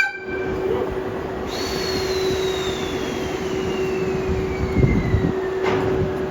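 Railway sounds of electric trains at a station: a steady hum runs throughout, while a high whine falls slowly in pitch for about four seconds. A sharp click opens the stretch, and low thumps come near the end.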